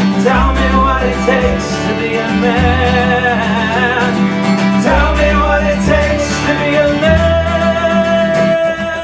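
Live band playing an instrumental passage: acoustic guitar and bass under a wavering fiddle melody, which settles into a long held note about seven seconds in.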